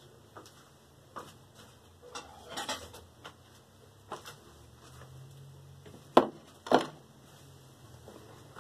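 Scattered light clicks and knocks of glass bowls and plates being handled on a tabletop, with two sharp clinks about half a second apart a little past the six-second mark.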